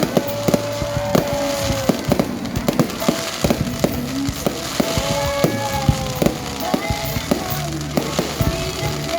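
New Year fireworks going off in a rapid, uneven string of sharp bangs and crackles, with music playing underneath.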